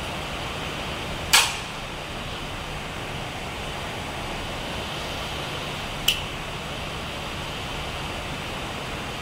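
Two sharp clicks from hand tools on the wiring, a loud one about a second in and a smaller one around six seconds in, over a steady background hiss and low hum.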